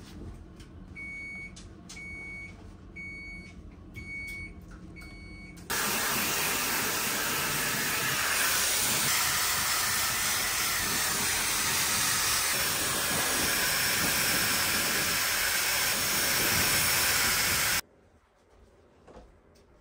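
Five short electronic beeps about a second apart, then a loud steady hiss that starts suddenly, runs about twelve seconds and cuts off abruptly.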